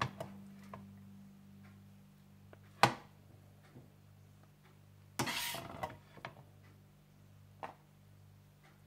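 Serving spatula spooning a fried carrot, almond and raisin topping onto a plate of rice. There are a few light clicks, one sharp tap about three seconds in, and a short scraping rustle a little after five seconds, over a faint steady low hum.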